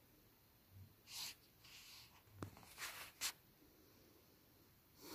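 Near silence, with a few faint short rustles and one sharp click about halfway through.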